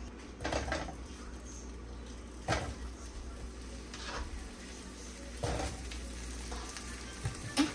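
Sausages sizzling as they are laid into a hot buttered frying pan, with about five short knocks and clatters as pieces go into the pan.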